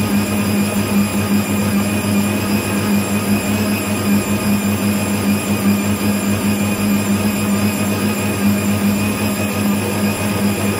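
Electric stand mixer running steadily at speed, its whisk beating egg whites and sugar into a thick zefir (marshmallow) mass; a constant motor hum with a strong low tone.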